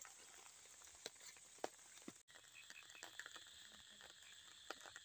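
Near silence: a faint steady hiss with a few soft scattered clicks.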